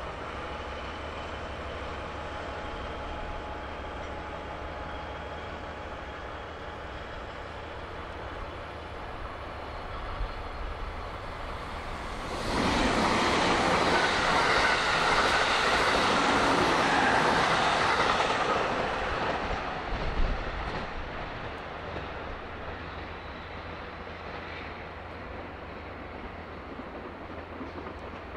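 A JR Kyushu 783-series 'Midori Express' limited express electric train passes close by. About twelve seconds in there is a loud rush of wheel and running noise that lasts some six seconds, then fades, with a short knock near the end of the pass. Before and after it, a steady low rumble from the DE10 diesel locomotive's engine.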